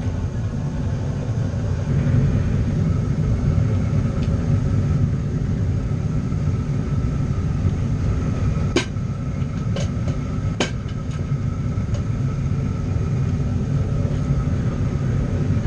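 Metal-melting furnace running with a loud, steady low rumble and a faint whine above it. It is heating the crucible to melt out leftover aluminium. About nine to eleven seconds in come a few sharp clicks.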